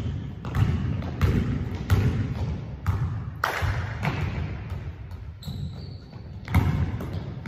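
Basketball bouncing on a hardwood gym floor as a player dribbles, a string of irregular thuds that echo in the large hall.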